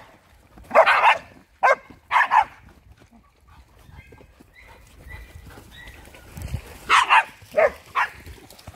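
Dogs barking while they play: a few short barks about a second in, and another cluster near the end.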